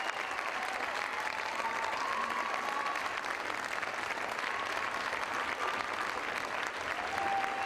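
Audience applauding steadily, a dense patter of many hands clapping, with a few voices calling out over it.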